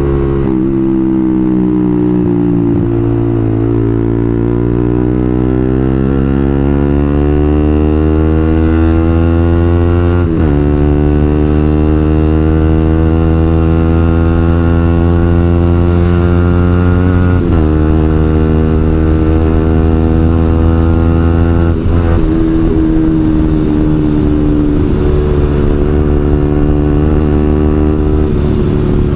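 Suzuki GSX-R150's single-cylinder engine through a WRX New GP K2 aftermarket racing exhaust, pulling gently through the gears. Its pitch climbs slowly, drops at upshifts about ten, seventeen and twenty-two seconds in, then holds fairly steady near the end.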